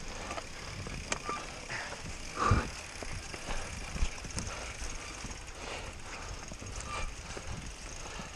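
Enduro mountain bike descending at speed: running noise with many scattered knocks and rattles, the loudest a heavy thump about two and a half seconds in.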